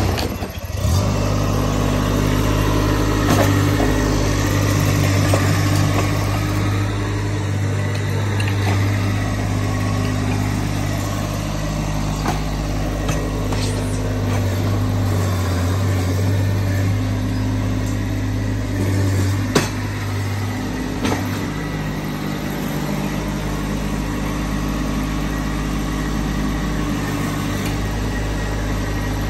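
Engine of a Ditch Witch stand-on mini track loader running steadily as the loader drives and works its bucket in loose dirt, its pitch and load shifting now and then. A single sharp clank sounds about two-thirds of the way through.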